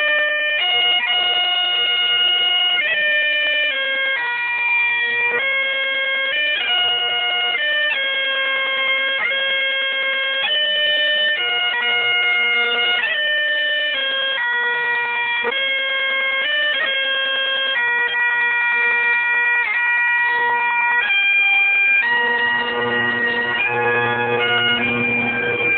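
Bagpipes playing a slow melody, each note held for about a second over a steady drone. The lower drone grows fuller near the end.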